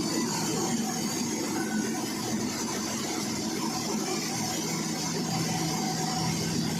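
Sawmill machinery running steadily, with a constant low hum and no change in load.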